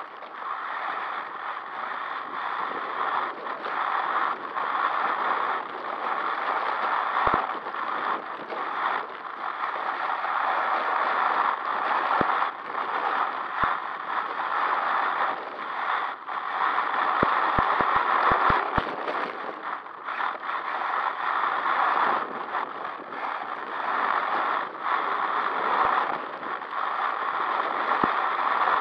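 HPI WR8 Flux brushless electric RC rally car running flat out over loose gravel: tyres crunching and hissing on the stones with the drivetrain running, swelling and easing in waves as it speeds down the straights and slows for corners. A few short knocks, most of them in a quick cluster past the middle.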